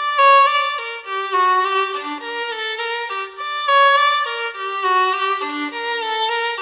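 Background music: a solo violin playing a melody of short, quickly changing notes.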